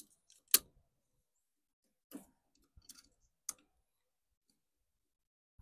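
Short, sharp plastic clicks as spark plug wire boots are pushed onto the towers of a clear plastic distributor cap: a few separate clicks, the loudest about half a second in.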